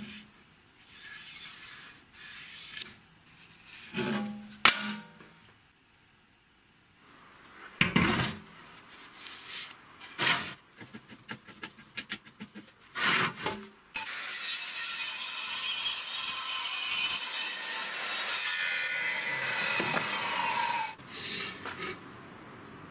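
Cut chipboard pieces being handled on a steel saw table: scattered wooden knocks and rubbing, then about seven seconds of loud continuous rasping past the middle.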